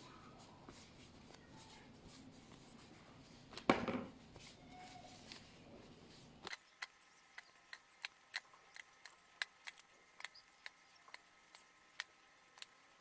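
Quiet handling noises: a single knock just before the middle, then, after the background suddenly drops away, a run of light, sharp, irregular clicks and taps, roughly two a second.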